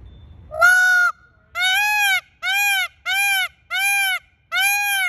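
Peacock (Indian peafowl) calling loudly: six calls in quick succession, the first rising then held, the rest about half a second each with a slight rise and fall in pitch and short gaps between.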